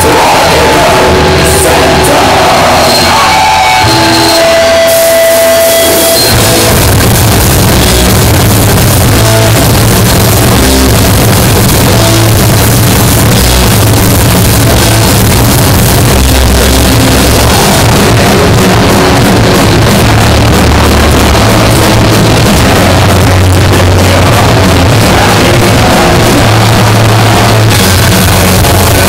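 Live heavy rock band playing loud, recorded in the crowd as a harsh, overloaded recording. About six seconds in, the full band comes in with heavy bass and drums.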